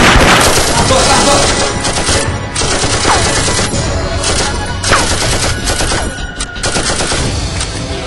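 Sustained rapid gunfire from a staged shootout, shot after shot with little pause, and two brief falling whines in between. Music plays underneath.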